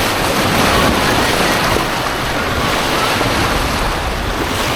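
Rushing white-water rapids, a loud steady wash of churning water heard close up from a kayak.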